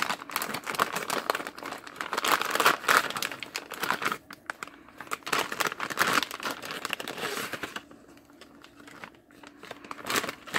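Plastic parts bags crinkling as they are handled and turned over. The crinkling dies down about eight seconds in.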